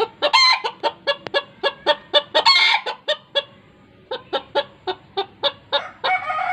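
Bantam chickens clucking in a fast, even run of short calls, about four a second, with a couple of longer squawks. A longer, drawn-out call starts near the end.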